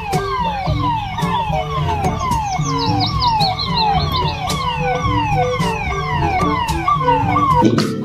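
Electronic police siren of a toy police car: a falling wail repeating about twice a second, over background music with a steady beat.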